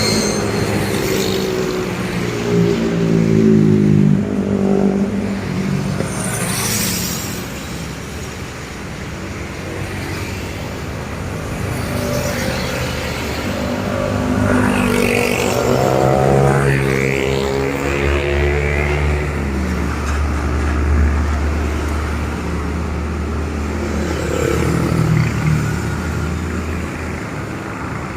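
Heavy diesel trucks passing one after another on a road, their engines rising and falling in pitch as each goes by. A deep, steady engine hum dominates for several seconds in the second half.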